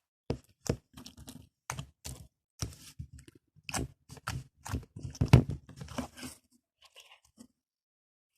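Slime being squeezed and kneaded by hand, giving a rapid run of wet clicks and pops that stops about six and a half seconds in.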